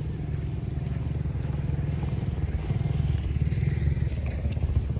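Small motorcycle-type engine running steadily with a low rumble.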